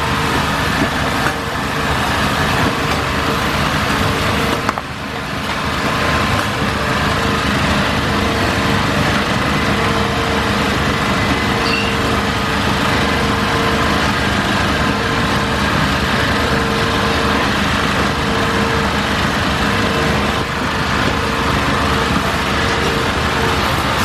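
Steady, loud engine-like drone with a constant hum, running without a break apart from a brief dip about five seconds in.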